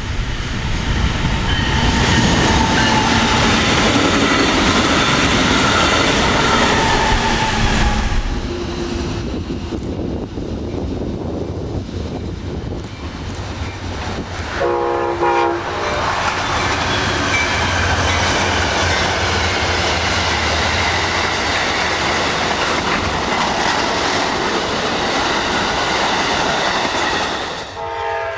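Trains passing at speed, a steady rumble of wheels on rail with clickety-clack and some squealing overtones. About halfway through, a locomotive horn sounds a short chord-like blast, and another horn chord begins right at the end.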